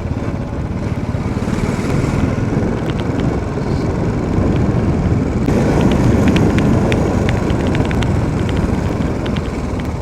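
Royal Enfield Bullet's single-cylinder engine running under way, with a steady low thumping beat that grows louder about halfway through. Faint sharp ticks are scattered over the second half.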